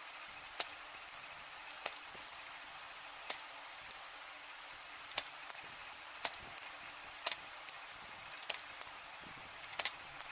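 Irregular sharp clicks and ticks, one or two a second, over a steady hiss.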